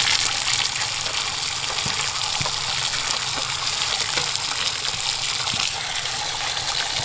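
A steady stream of water gushing into a large aluminium basin, splashing over bundles of thin dried noodles.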